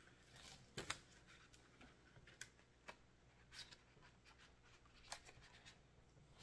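Faint handling noises of an eyeshadow palette and its packaging: a few light taps and rustles, the clearest about a second in, over near silence.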